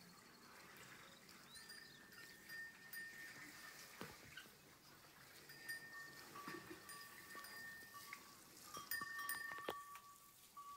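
Faint chime-like ringing of small metal bells: several clear tones at a few fixed pitches, overlapping and each ringing on for a second or two, with a couple of soft knocks.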